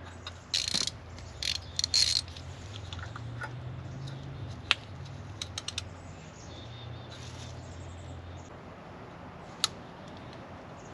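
Hand socket ratchet tightening a bolt on an engine: a few short ratcheting runs in the first two seconds, then scattered sharp metal clicks and clinks of tools, over a steady low hum.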